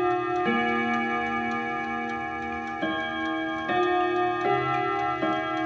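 Steady ticking of a clock, with a slow sequence of sustained bell-like notes sounding over it.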